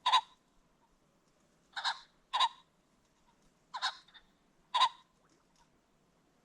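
Ring-necked pheasant giving five short, clipped calls, irregularly spaced. The second and third come as a quick pair about half a second apart.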